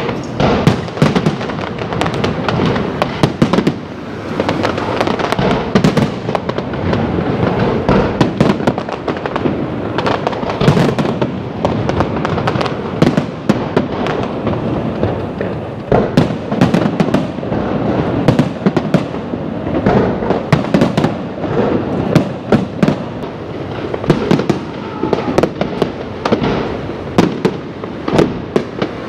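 Aerial fireworks display going off in a continuous barrage: many sharp bangs a second, irregularly spaced, over a steady crackle.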